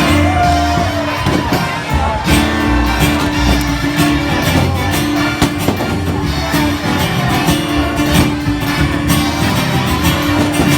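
A live country band playing an instrumental passage: a steady bass and drums under a held note that comes back in repeated phrases, with no singing.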